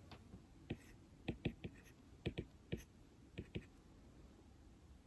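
Typing on an iPad: about a dozen short, irregular taps in quick clusters, then a pause in the last second and a half.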